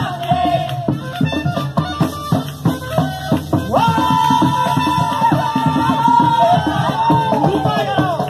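Live cumbia music played over a PA: drums and shakers strike steadily under a melody, which holds one long note through the second half.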